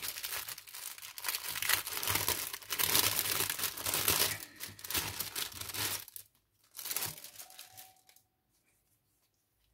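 Clear plastic bag crinkling and rustling as it is handled and a small cloth mask is pulled out of it. Dense rustling for about six seconds, one shorter rustle about a second later, then it stops about eight seconds in.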